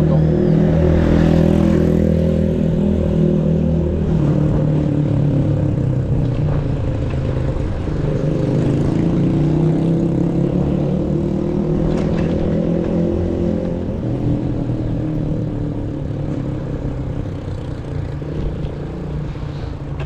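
Motorcycle engine running close by, its pitch drifting up and down, strongest for the first fourteen seconds or so and then fading, over steady road and wind noise.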